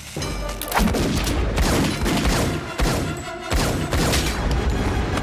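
Rapid handgun fire starting a fraction of a second in, many shots in quick succession as two pistols are fired while running, with heavy low rumble under the shots and a film score playing along.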